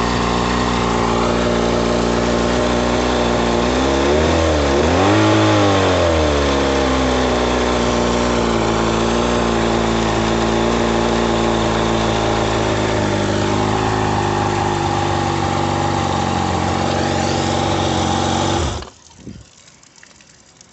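Freshly restored 1961 Mercury Merc 500 outboard motor, a two-stroke, running steadily. It is revved briefly twice, about four and five seconds in, settles back, and then shuts off abruptly near the end.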